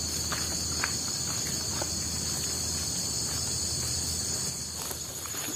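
Steady high-pitched chorus of crickets and other forest insects, over a low steady background noise, with a few faint scattered clicks.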